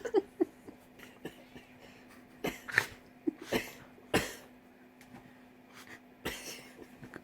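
A dog sneezing repeatedly: about five short, sharp sneezes over some four seconds, with a faint steady hum underneath.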